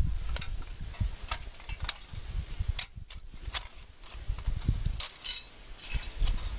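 Sheet-metal panels of an Emberlit folding wood stove being slotted together by hand: scattered light metal clicks and clinks, with a brief metallic ring about five seconds in, over a low rumble.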